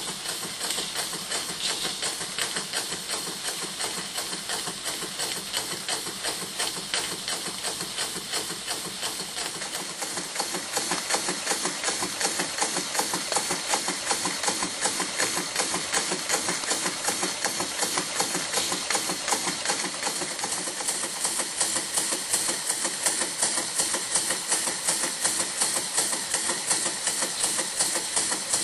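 1971 Bio-Fiz model steam engine running and belt-driving a dynamo: a fast, even beat of steam exhaust over a steady hiss, growing louder about ten seconds in.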